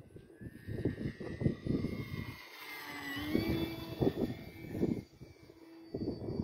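Electric motor and propeller of a Corvus Racer 540 RC aeroplane whining in flight. The motor is a 400-size 1200 kV brushless on a 3S battery. The pitch climbs slowly and then shifts sharply about three seconds in, over a low rumble of wind on the microphone.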